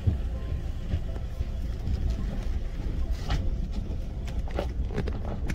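Vehicle driving, heard from inside the cabin: a steady low rumble of engine and tyres, with a few sharp knocks from about three seconds in.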